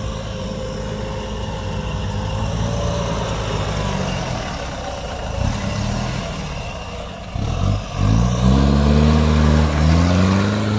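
Off-road 4x4's engine working under load as the vehicle climbs an obstacle, with the revs dipping briefly about seven and a half seconds in, then rising and running loudest near the end.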